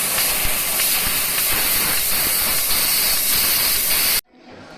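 Steady, loud hiss of high-pressure assist gas at a fiber laser cutting machine's cutting head during a cut, cutting off abruptly about four seconds in.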